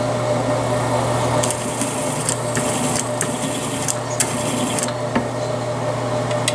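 A small electric motor running steadily, spinning a cutter that removes the crimps from .223 brass primer pockets, with scattered light clicks and scrapes as cases are worked against it.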